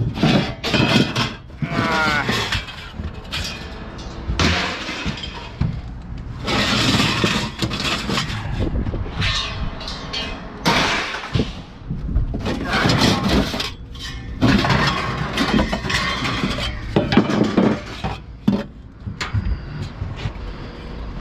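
Scrap steel and appliances, a stove among them, being thrown off a truck onto a scrap pile: repeated loud crashes and metallic clattering, one after another.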